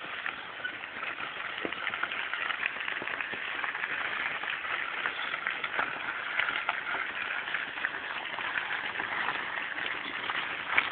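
Mountain bike tyres rolling over a gravel track: a steady crunching crackle sprinkled with small clicks from stones and the bike's rattle.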